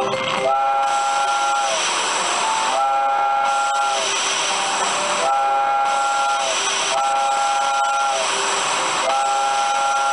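Coin-operated steam train kiddie ride's speaker playing a recorded steam whistle: a chord of several steady tones, tooting five times for about a second each, over a steady hiss of steam.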